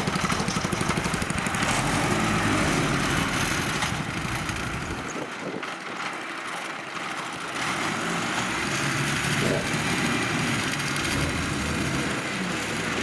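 Engine of heavy farm machinery running steadily, its deep rumble dropping away for a couple of seconds near the middle and then coming back.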